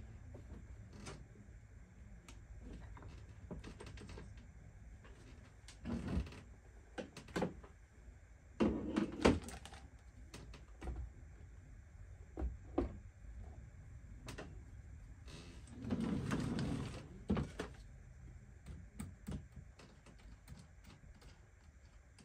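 Hands handling RC monster-truck wheels, tyres and a hex driver on a workbench: scattered knocks and clicks, with louder bursts of rustling clatter about six, nine and sixteen seconds in.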